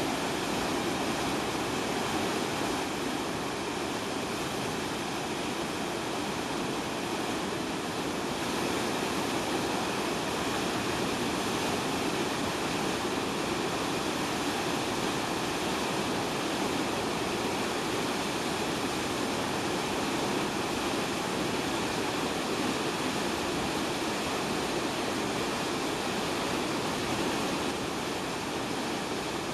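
Fast-flowing river rushing over rocks: a steady, unbroken sound of water.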